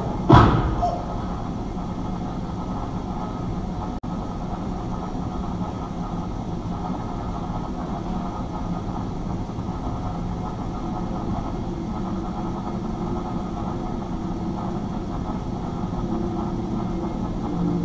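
A sharp hit with a quickly falling sweep just after the start, then a steady low mechanical rumble with a faint held hum, part of the performance's soundtrack.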